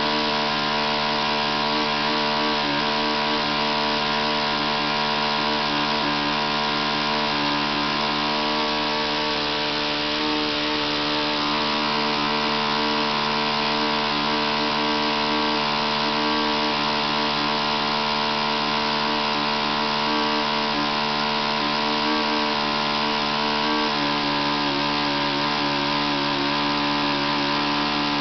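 Magnum 52 four-stroke glow engine on an RC model airplane running steadily with its propeller spinning, about four tanks into its break-in. A slight shift in pitch near the end.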